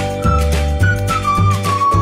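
Background music: a high, sliding lead melody over a bass line and a steady beat.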